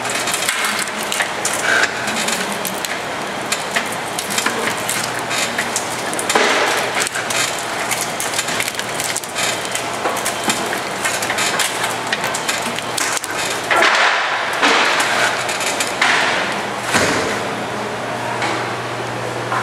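Pallet Chief nail clincher and its pallet line running. Wooden boards and metal parts clatter and knock continuously over a steady machine hum, with louder bursts of clatter about six seconds in and again from about fourteen to seventeen seconds.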